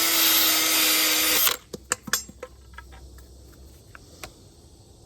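Power tool spinning a Velcro-backed grinding pad against an alloy rim, sanding out curb rash. It runs steadily, then stops about a second and a half in. A few light clicks and taps follow.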